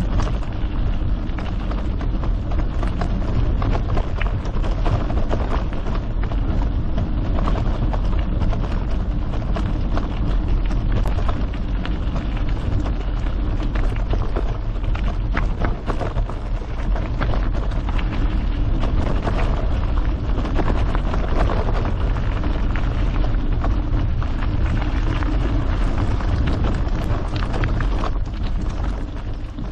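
Mountain bike riding along a trail, its tyres crackling over the stony surface and the bike rattling, with a constant rumble of wind and vibration on the action camera's microphone.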